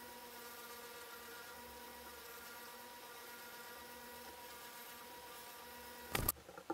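Ridgid oscillating spindle sander running with a steady buzzing hum while a maple workpiece's curved edge is sanded against the spindle. About six seconds in the hum stops abruptly with a sharp knock, followed by a smaller knock.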